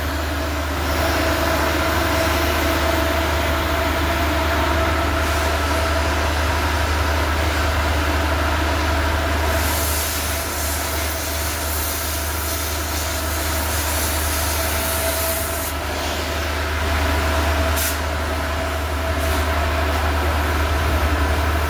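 Heavy machinery running steadily with a loud low drone, a faint steady whine and hiss above it, and a short sharp click near the end.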